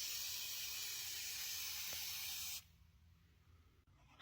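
Aerosol lubricant spraying onto a garage door spring: a steady hiss that cuts off about two and a half seconds in.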